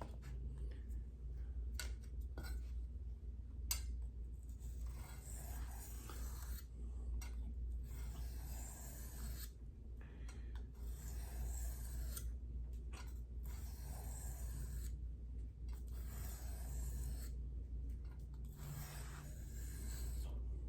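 Knife blade drawn over a sharpening stone in repeated hissing, scraping strokes, each about a second or two long with short pauses between them.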